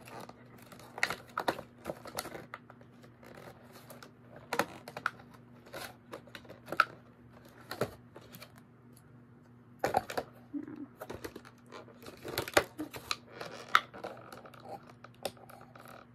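Irregular clicks, taps and crinkles of plastic toy parts and packaging being handled, over a faint steady low hum.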